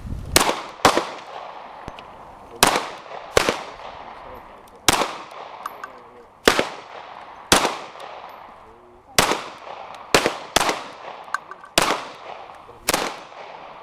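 Gunshots from firearms at a shooting range: about a dozen sharp reports fired one at a time at uneven intervals, each followed by a short fading echo.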